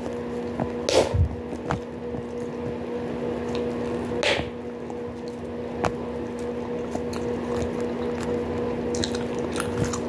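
Bubblegum being chewed close to the microphone: wet, squishy mouth clicks and smacks, with two louder snaps about one second and four seconds in. A steady low hum runs underneath.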